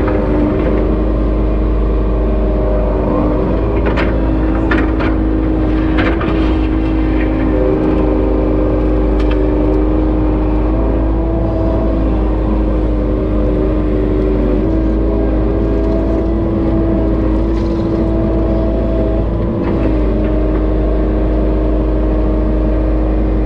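Kubota KX080-3 excavator's diesel engine running steadily under digging load, heard from inside the cab, with a hydraulic whine that steps up and down in pitch as the boom and bucket move. A few sharp knocks and scrapes come in the first half, as the bucket works the clay and gravel.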